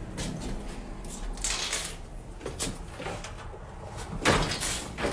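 Scattered knocks and scraping handling noises, with a louder scrape about four seconds in.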